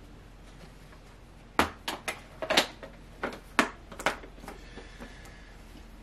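A quick run of sharp clicks and knocks, about eight of them over two and a half seconds, starting about a second and a half in: small hard objects being handled and set down by hand.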